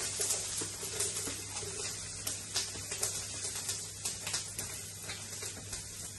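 Wooden spoon scraping and tapping chopped mushrooms, garlic and peppers off a plastic chopping board into a hot frying pan: a run of irregular clicks and taps as pieces drop into the pan. Onions are sizzling softly in the oil underneath.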